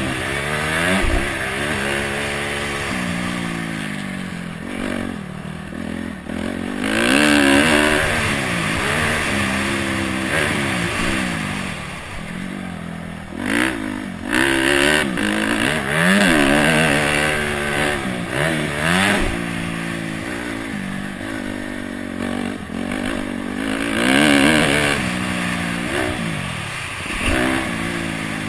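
Honda CRF250X's single-cylinder four-stroke engine being ridden hard, its pitch rising and falling over and over as the throttle is opened and shut through the corners and jumps. There are short bursts of rushing noise in places.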